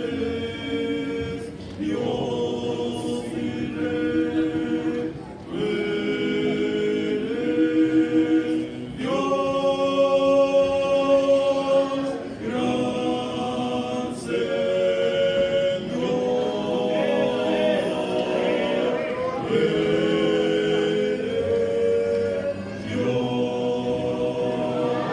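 A choir singing a worship song a cappella, in held chords, phrase after phrase with short breaks between them.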